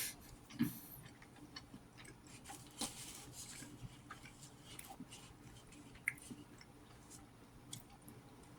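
Faint chewing with scattered small mouth clicks and smacks, irregularly spaced, and a brief crunchy stretch about three seconds in.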